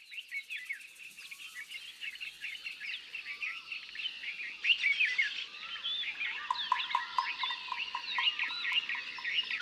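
Many small birds chirping and twittering together, fading in at the start. A lower call repeats over and over in the second half.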